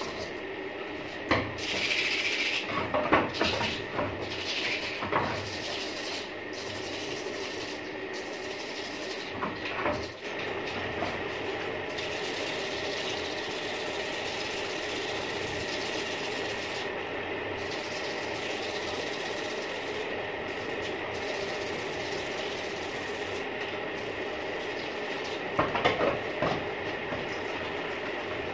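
Aluminium motorcycle wheel hub scrubbed by hand with abrasive, rough scraping strokes in the first several seconds, over a steady machine hum that carries on alone for the rest.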